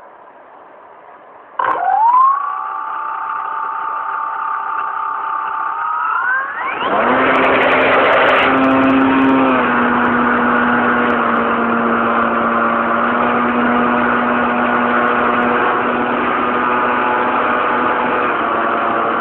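The motor of a radio-controlled Cessna 182 model aircraft, heard from a camera mounted on the model: it starts suddenly about two seconds in and runs at a steady low throttle, then revs up near the middle to a louder, steady full-power note for the takeoff run.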